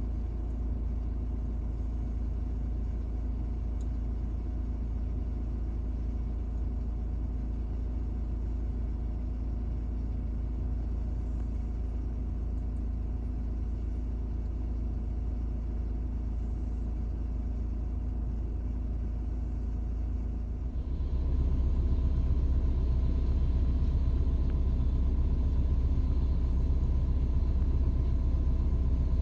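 Steady low rumble of jet airliner engines at taxi power across an airfield, with a steady hum. It gets louder about two-thirds of the way in.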